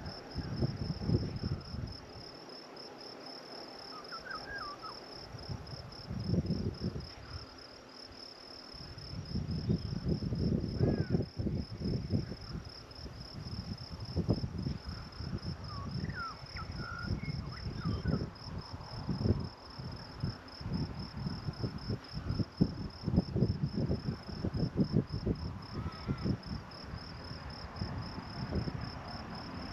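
Insects calling in a steady, high-pitched, finely pulsing chorus, with a few short bird chirps. Irregular low rumbling of wind buffeting the microphone comes and goes.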